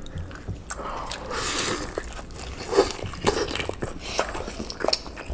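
Close-up eating sounds of gyoza dumplings being bitten and chewed: a busy run of wet smacks and sharp crisp clicks.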